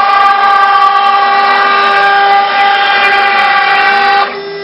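1.5 kW water-cooled spindle of a 6040 CNC router milling a plate, giving a loud, steady, high-pitched whine. The cutting noise drops off sharply about four seconds in, leaving the spindle's steady whine.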